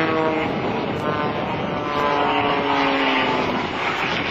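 Propeller-driven aerobatic monoplane, an MX2, droning in flight with a steady engine-and-propeller note. Its note falls slowly in pitch partway through.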